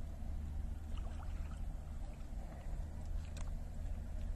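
Double-bladed paddle dipping and dripping beside a Salyut-2 folding kayak, with a few small splashes and clicks, the sharpest about three seconds in, over a steady low rumble.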